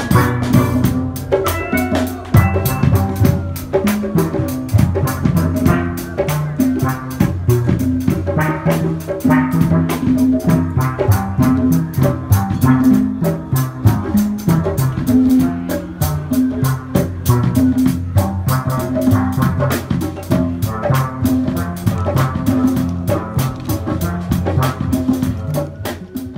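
Upbeat instrumental music with drums keeping a fast, steady beat under a melody of short, struck-sounding notes.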